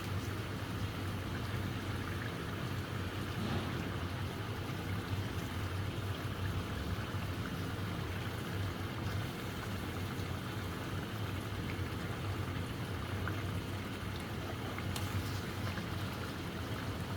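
Chicken pieces frying in hot oil and masala in a karahi: a steady sizzle, with a low hum underneath.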